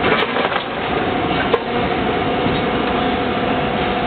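Plastic injection moulding machine running with a steady hum, as its mould halves move to open and close. There is a burst of clatter right at the start and a sharp click about a second and a half in.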